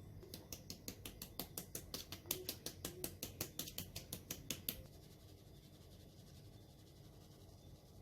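A sieve being shaken to sift flour and baking powder: a fast, even run of light taps, about seven a second, that stops about five seconds in.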